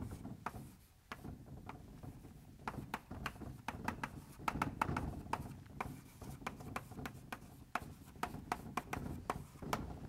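Irregular light taps and scratchy rubbing, like someone writing, over a low room hum.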